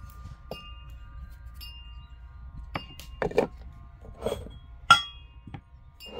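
Small ceramic bowls and clay pot lids being handled and set down on a wooden table: a run of short knocks and clinks over the second half, the sharpest, ringing clink just before five seconds in. Soft chiming tones go on underneath.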